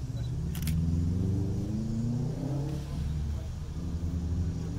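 Diesel engine of a 1900 class railmotor running and revving, its pitch rising over a couple of seconds and then easing back. There is a brief sharp click about half a second in.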